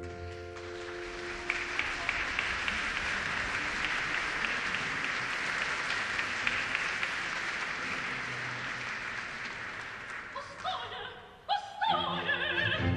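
Audience applauding steadily in an opera house for about ten seconds, then fading out. Near the end a soprano voice and the orchestra start up again.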